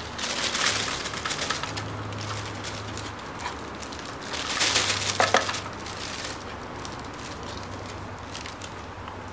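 Plastic bag rustling and crinkling as hair and dust are emptied from a robot vacuum's dustbin into it. The crackles come in irregular bursts and are loudest about five seconds in.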